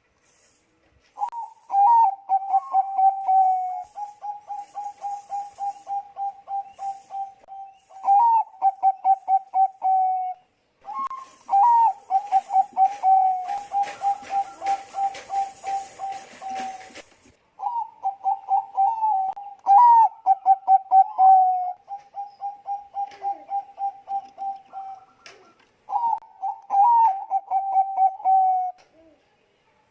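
Zebra dove (a Bangkok-bred perkutut) singing, about five phrases of staccato coos. Each phrase opens with a few louder, higher notes and runs into a long, even string of quick coos, several a second.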